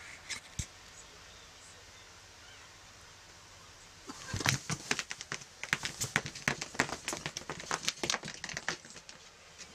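A cat's claws scrabbling and rustling on fabric bedding as it climbs: a quiet start with a couple of small clicks, then from about four seconds in a rapid, irregular run of scratchy crackles for some four seconds.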